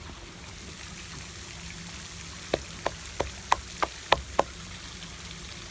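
Steady rush of a small stream, with a quick run of seven sharp clicks about halfway through.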